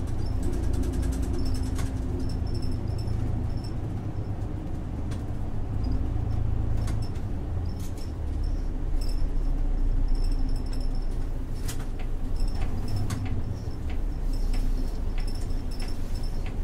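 Isuzu Erga city bus driving, heard inside the cabin: its 6HK1-TCC diesel engine and Allison five-speed torque-converter automatic make a steady low rumble, with scattered clicks and rattles from the bodywork.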